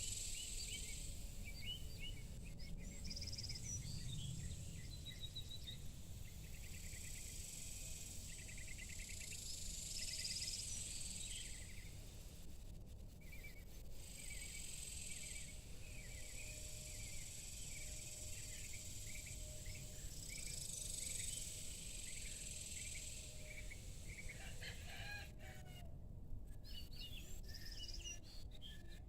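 Evening outdoor ambience: many short bird chirps over a high insect chorus that swells and fades in waves every few seconds.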